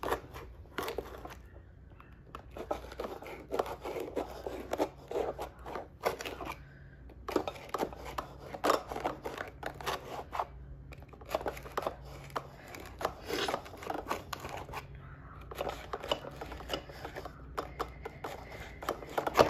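Plastic knife cutting brownies in a metal baking pan: a run of short scrapes and clicks, with brief pauses between cuts.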